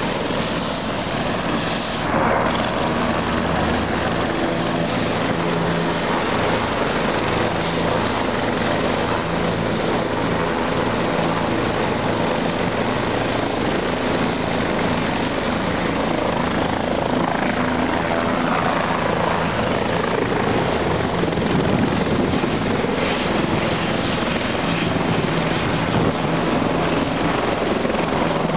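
Police helicopter's turbine engine and rotor running steadily and loudly, with a brief break about two seconds in.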